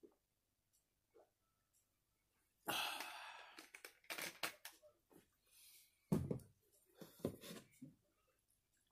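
A man's loud, breathy exhale after gulping cola from a bottle, fading over about a second, then short low throat sounds twice near the end.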